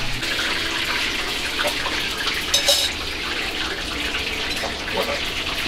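Water running from a kitchen faucet, a steady rushing, with one short high clink a little past halfway through.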